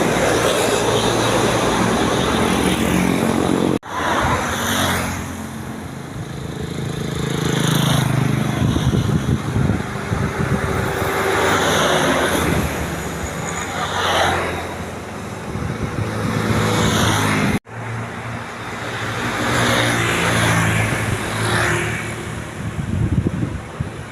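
Large tour buses on the road, engines running with tyre and road noise that swells and fades as buses pass, several times over. The sound breaks off abruptly twice where separate clips are spliced together.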